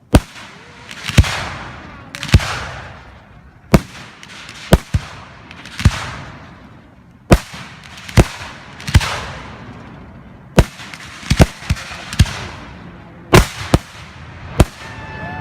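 Aerial fireworks shells bursting overhead: about sixteen sharp booms at irregular intervals, roughly one a second with a few close pairs, several trailing off in a fading hiss.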